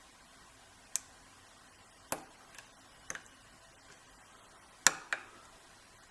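Single-pin picking of an old Wilson Bohannan brass padlock: six sharp, irregular clicks as the pick and tension wrench work the pins in the keyway. The loudest click comes near the end, shortly before the lock opens.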